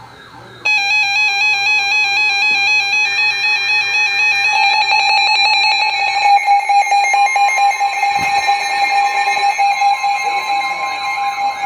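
Emergency Alert System alert tones. About half a second in, loud warbling electronic data tones start abruptly, and the steady dual-tone attention signal then sounds over them.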